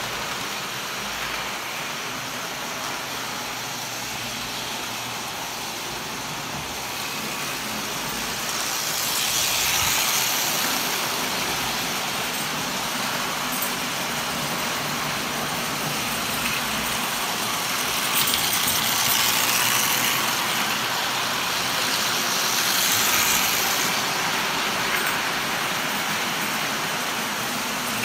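Standard gauge tinplate electric toy trains running on metal three-rail track: a steady rolling clatter and motor hum, swelling three times as trains pass close by.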